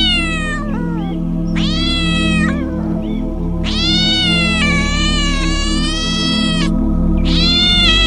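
Domestic cat meowing repeatedly: a meow ending just after the start, another about a second and a half in, a long drawn-out meow of about three seconds, and a fourth starting near the end, over background music with a steady low drone.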